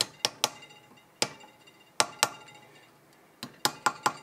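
A hand tool tapping and knocking on the copper firebox of a model traction engine boiler: about ten sharp metallic taps, some in quick pairs and threes, each with a brief ring.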